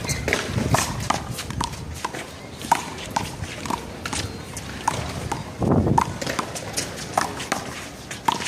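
Small rubber handball being hit back and forth in a one-wall handball rally: a quick, irregular run of sharp pops as the ball strikes palms, the wall and the ground, with players' footsteps.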